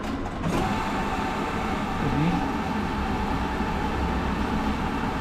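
NCR cash-deposit ATM's note-handling mechanism running as it takes in and counts the deposited banknotes. It is a steady mechanical whir with a faint hum that starts about half a second in.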